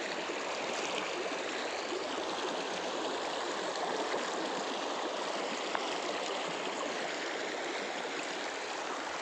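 Shallow river flowing fast over rocks and stones: a steady, even rush of water.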